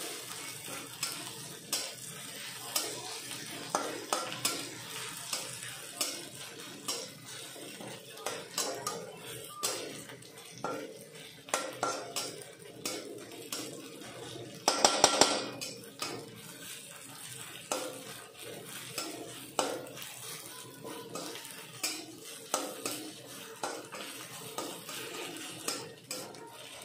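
Metal spatula scraping and knocking against an aluminium kadai while stirring onions and ginger-garlic paste frying in oil, with a light sizzle underneath. The strokes come every half-second to a second, with one louder, ringing clatter about halfway through.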